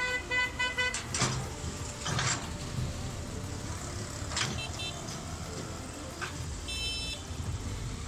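Excavator's diesel engine running steadily while the bucket works the bank, with a few brief scraping knocks. A quick run of about five short beeps sounds in the first second, and a short high squeal comes near the end.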